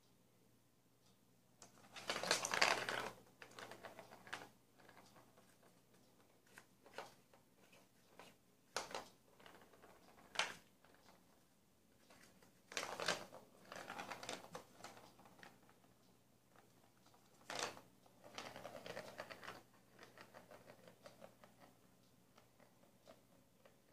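A ball rattling as it rolls around the enclosed plastic track of a Catit Senses Super Roller Circuit cat toy, set rolling in several bouts of a second or two as a cat bats at it, with sharp taps and knocks on the track in between.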